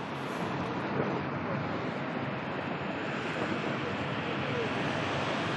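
Steady rushing of wind and waves on open water.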